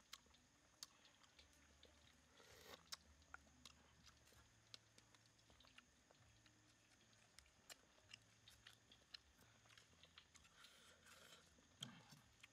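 Faint chewing of grilled mussel, with scattered small clicks and scrapes of a knife blade against a mussel shell.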